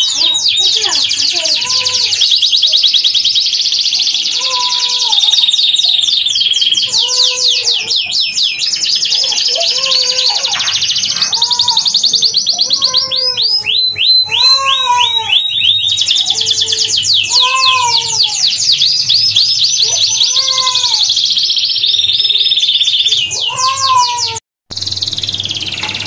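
Domestic canary singing: long, very fast high trills and rolls, with a lower, slower arched note repeating about once a second underneath. The sound cuts out for an instant near the end.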